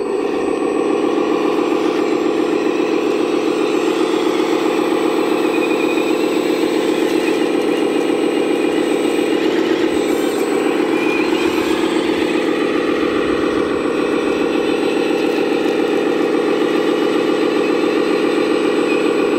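Steady diesel-truck engine sound of a 1/14-scale RC Volvo A40G articulated dump truck running as it crawls over rough dirt.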